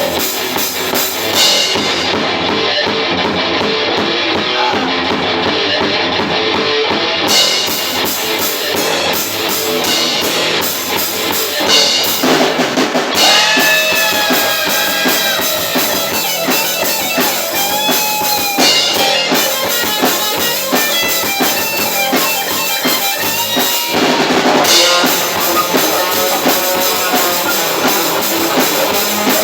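Metal band playing live in rehearsal: drum kit and distorted electric guitar at full volume. The highest sounds drop out for a few seconds near the start, and a melodic line with bending notes stands out in the middle.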